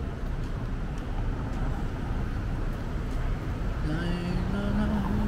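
City street traffic rumbling steadily, with a vehicle engine's tone coming in about four seconds in and rising slightly in pitch as it grows louder.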